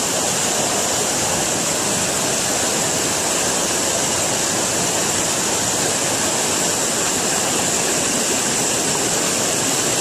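Fast mountain river rushing over boulders and gravel, a steady, loud wash of white water.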